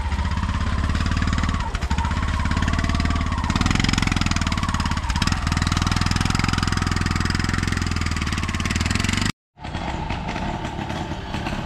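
Auto-rickshaw (three-wheeler) engine idling with a steady, even beat. It breaks off abruptly about nine seconds in, and a quieter three-wheeler engine runs after that.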